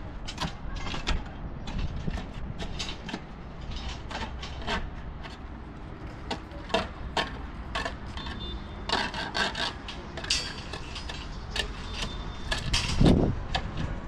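Construction work on a building site: irregular knocks, clinks and scraping of tools and materials over a low rumble, with a heavier thump near the end.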